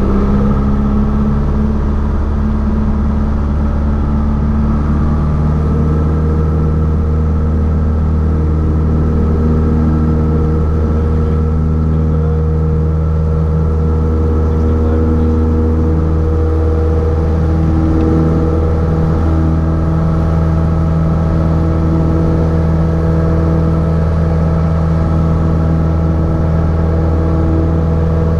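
A light single-engine propeller plane's piston engine at full takeoff power, heard from inside the cockpit: a loud, steady drone through the takeoff run and into the climb. Its higher tones shift slightly about halfway through.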